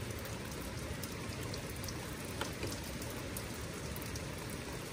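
Steady rain, an even hiss with scattered drops tapping.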